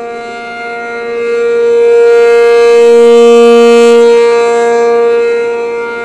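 ACA P-50 rotating electromechanical warning siren sounding its steady two-tone alert chord (470/705 Hz) at full speed. It grows louder to a peak about two seconds in as the rotating horn sweeps toward the listener, then eases off near the end.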